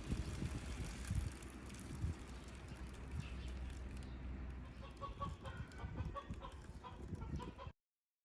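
Chickens clucking over a low rumble, with short repeated calls in the second half. The sound cuts off abruptly near the end.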